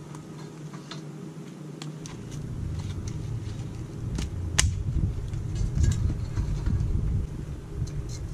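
Wind rumbling on the microphone, louder after the first two seconds. Over it come scattered light knocks and clicks of split firewood and kindling laid into a small metal fire bowl, with one sharp crack about halfway through.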